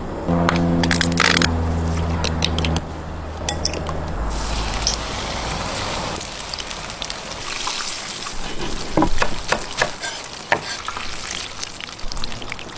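Chicken frying in hot oil: a steady sizzle with many small crackles and pops. For the first few seconds it sits under a steady low hum that steps in pitch.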